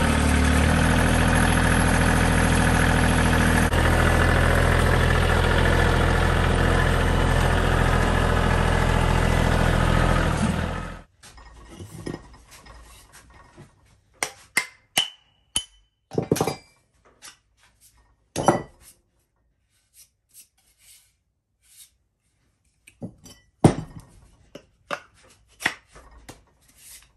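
Compact tractor engine running steadily for about ten seconds, then cutting off suddenly. After that come scattered light knocks and taps as a steel axe head is handled and fitted onto its wooden handle.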